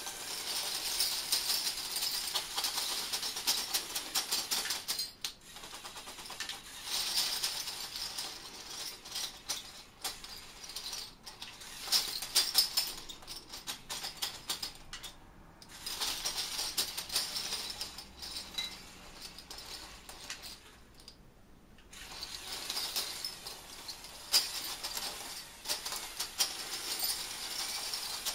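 Metal bottle caps clattering and clinking against each other as a motorized LEGO Technic bulldozer grinds and pushes through a pile of them, with the small whir of its plastic gearing. It comes in runs of several seconds, dropping away briefly three times.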